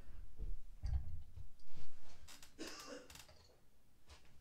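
Plastic Transformers action figures being handled and set down on a surface: a few soft bumps and light plastic clicks, fading toward the end.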